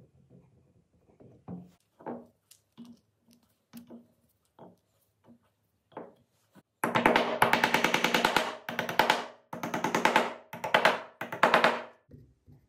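Wooden dowels being set into drilled holes in wooden boards: a few light knocks as they go in by hand, then five loud bursts of rapid strikes as they are driven home, with the board ringing under the blows.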